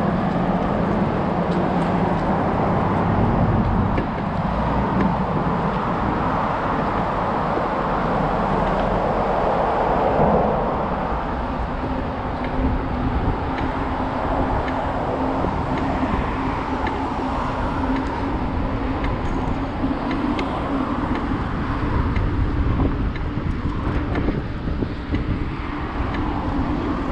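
Steady wind rush and rumble on a bike-mounted action camera's microphone while riding along a paved path.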